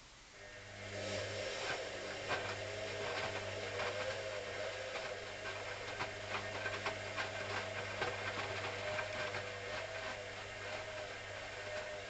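Hoover CA232 washing machine running mid-wash: a steady motor hum with irregular clicks and knocks over it, starting about half a second in and stopping near the end.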